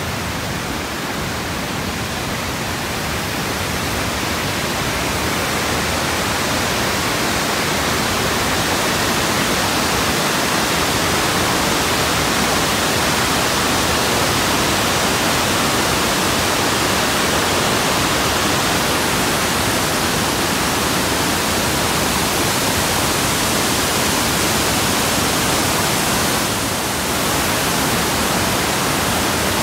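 Water of the Montmorency River pouring over a concrete weir: a steady rush of falling water that grows a little louder over the first several seconds.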